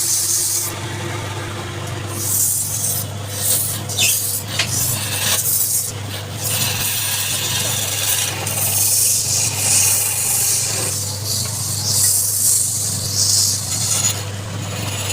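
Wood lathe running with a steady motor hum while a tool works the spinning wood, giving uneven hissing, rasping passes that come and go every second or so.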